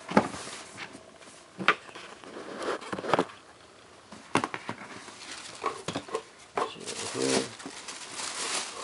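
Cardboard shoebox being handled and opened: a few sharp taps and knocks, then paper rustling near the end.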